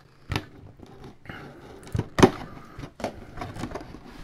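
Cardboard box of a mini helmet being opened by hand: a few sharp snaps and scrapes of the flap and card tearing loose over light rustling, the loudest a little over two seconds in.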